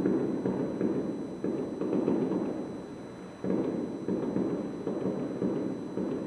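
Aerial firework shells bursting one after another, heard from over a kilometre away as dull, low booms running into a continuous rumble. The bangs ease off briefly, then a fresh loud burst comes about three and a half seconds in.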